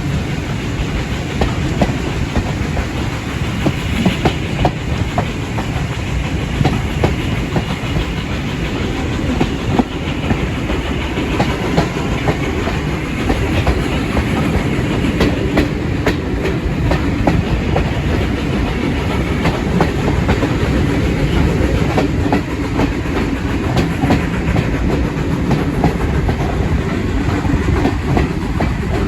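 Train running along the line: a steady loud rumble with frequent short clicks of the wheels over the track.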